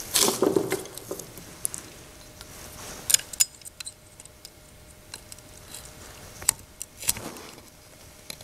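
Small metal clicks and scrapes of needle-nose pliers and a small spring clip against the breaker-points post inside a Wico X type magneto, as the clip is worked over the points. A burst of handling rustle at the start, then scattered sharp clicks.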